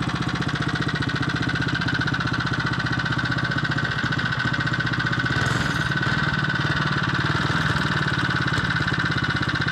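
79cc Power Fist OHV single-cylinder four-stroke engine idling steadily, an even, rapid putter.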